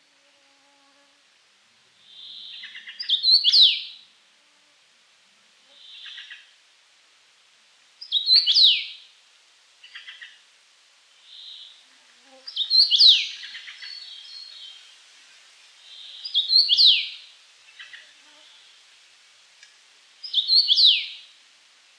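Common rosefinch singing its short whistled song phrase five times, about every four seconds. Each phrase steps up through a few notes and ends in a falling slur, with fainter, softer notes between the phrases.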